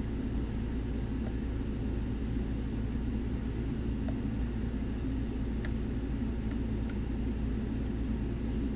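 Steady low rumble with a few faint, short clicks of a hook pick working the pins of a lock.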